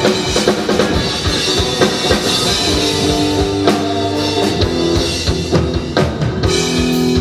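Live rock band playing an instrumental passage between sung lines: drum kit, guitar and bass.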